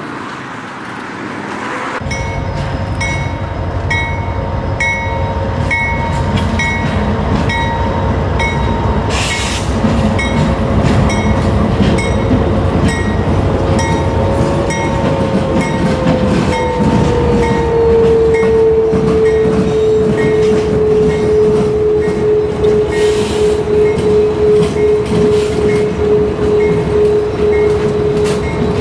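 Train passing with a steady rumble. A bright ding repeats a little under twice a second, and a steady whine drops in pitch about two-thirds of the way through, then holds.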